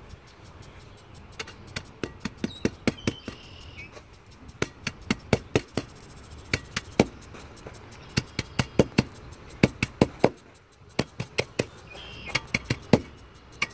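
A 10-by-10-inch steel hand tamper striking the stair base over and over to compact it and bring down a high spot in the centre. The blows are sharp and come in quick runs of several strikes with short pauses between.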